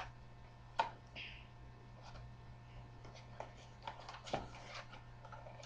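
Faint handling noises from a trading-card box: a few light clicks and a brief soft rustle of cardboard being moved, spaced out over a few seconds.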